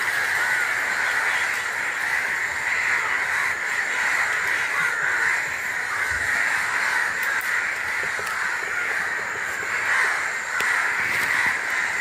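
Steady, unbroken high-pitched drone of a forest insect chorus, with a dull low bump about six seconds in.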